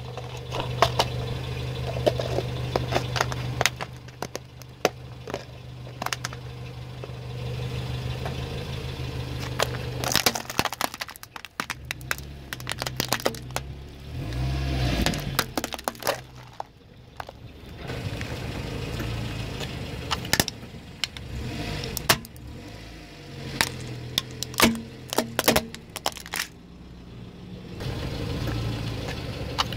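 A car engine idling, with sharp clicks of hard plastic balls and toys dropping into a plastic tub. About halfway through there is a low rumble as the car's tyre rolls onto the tub, and the plastic cracks and crunches. Scattered sharp plastic cracks and clicks follow.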